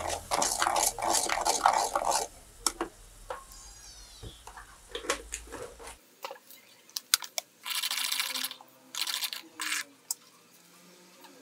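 Kitchen work with utensils and dishes: scattered clicks and knocks, with a dense stretch of rough noise in the first two seconds and two shorter bursts after the middle.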